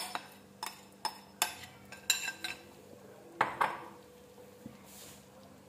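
Wooden spoon stirring soup in a metal pot, knocking against the pot's sides in a run of about ten clinks with a brief metallic ring, stopping about four seconds in. The soup is being stirred steadily as cornflour slurry is added to thicken it.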